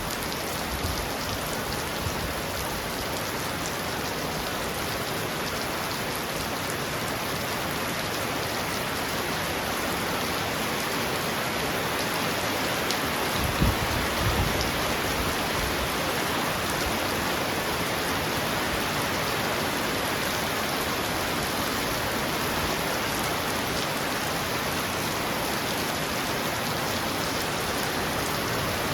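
Heavy rain falling steadily on a roof, a dense even patter. About halfway through there is a brief low thump.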